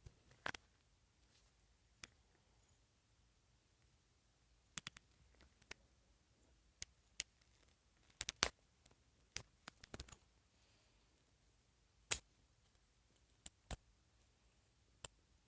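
Faint, irregular small clicks and snaps of hands working a stuck hairnet off a doll's curled hair, with a few sharper clicks in the second half.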